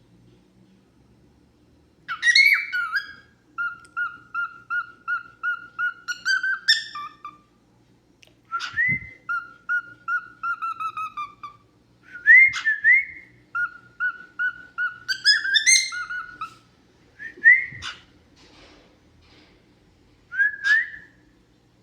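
Cockatiel singing its whistled song: bouts of rising, swooping whistles and runs of short repeated notes, starting about two seconds in and broken by short pauses.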